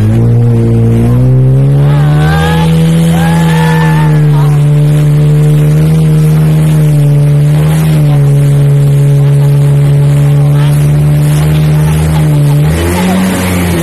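Jet ski engine running at speed, a steady drone that rises in pitch about a second in and dips briefly near the end, over the rush of water spray.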